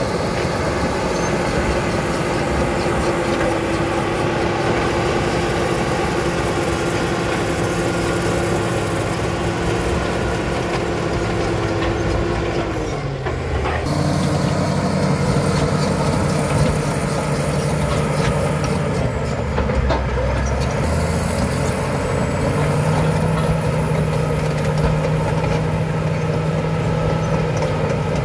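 Caterpillar crawler bulldozer's diesel engine running under load as the dozer pushes earth. Its note sags and breaks off about halfway through, then picks back up at a new pitch.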